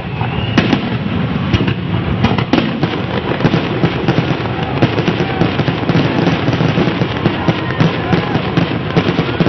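Fireworks display: a dense, unbroken stream of crackles and pops, with louder bangs scattered through.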